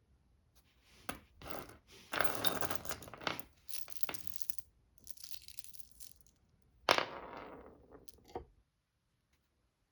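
Hands handling a box of .22LR cartridges: irregular rustling and scraping of cardboard and plastic, with one sharp knock about seven seconds in and a few small clicks after it.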